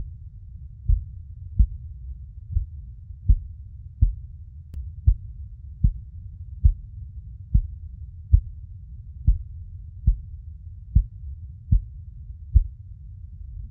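Recorded mother's heartbeat: soft low thumps about one and a quarter times a second, in loosely paired beats, over a steady low background noise.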